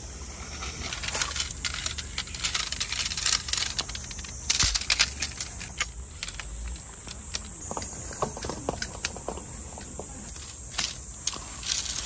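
A tent being handled: nylon fabric rustling and shock-corded aluminium tent poles clicking and clattering as they are unfolded, with steps crunching on gravel. There are many short irregular clicks, thickest about halfway through.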